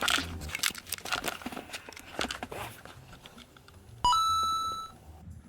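Rustling and clicking handling noise, then a single short electronic beep about four seconds in that fades out in under a second.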